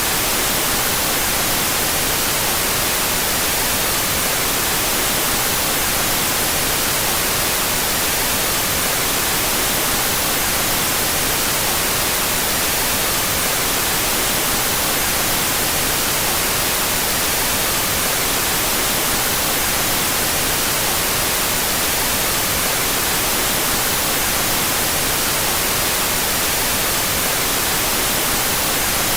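Out-of-phase white noise: a steady, unbroken hiss with its energy strongest in the high end and no change in level throughout.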